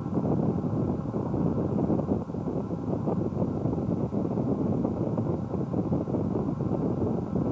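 Steady engine and road noise of a moving vehicle, a dense low noise with no clear pitch or rhythm.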